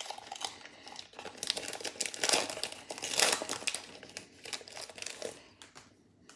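Foil wrapper of a Pokémon card booster pack crinkling in irregular bursts as it is pulled and torn open by hand. The crinkling dies away near the end.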